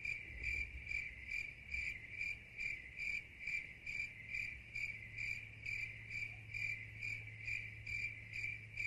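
Cricket chirping sound effect: an even series of high chirps, about two a second, over a faint low hum.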